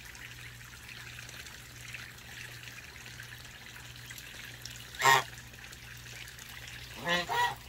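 Water trickling steadily under a low steady hum, where goslings and ducklings are in the water. Two short bird calls break through, one about five seconds in and a double call about seven seconds in.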